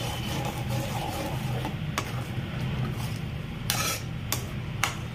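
A metal spoon stirring a thick tomato gravy in a metal kadai, scraping and rubbing against the pan, with a few sharp clinks and a louder scrape near the end.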